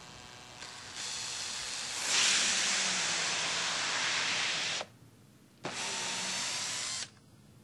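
Cordless drill spinning a DoubleRock tubular foam cutter down into upholstery foam, a steady whirring hiss that gets louder in two steps over the first couple of seconds. It stops sharply, then runs again for just over a second, boring out a core of foam for button tufting.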